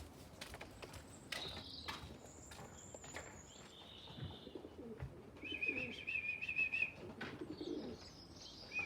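Pigeons cooing in low, wavering calls, with a small bird chirping and a warbling trill from a songbird in the background; a few soft clicks and taps among them.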